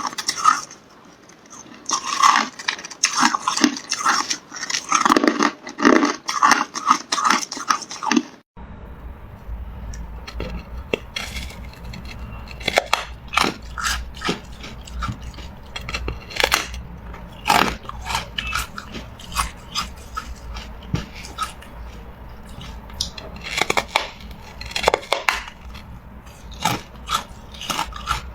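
Hard carbonated ice being bitten and chewed: rapid, dense crunching, then after about eight seconds it changes abruptly to quieter, sparser crunches and cracks over a steady low hum.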